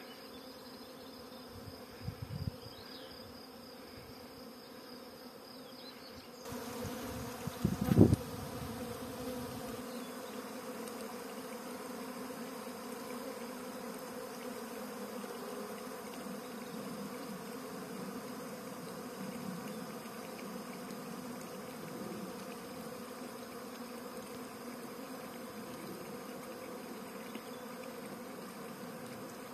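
Honeybee swarm buzzing, a steady hum of many bees clustered on a tree branch, louder from about six seconds in. A brief loud thump comes about eight seconds in.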